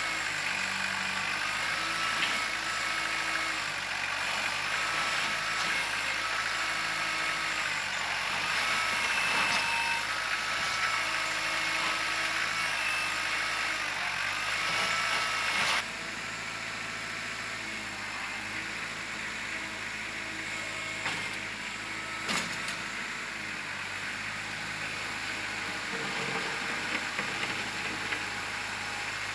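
Kubota L4600 tractor's diesel engine running under load, with a whine that rises and falls in pitch as the hydraulics of the loader and backhoe work. About halfway through the sound drops suddenly to a lower, steadier level, and a couple of sharp knocks follow a few seconds later.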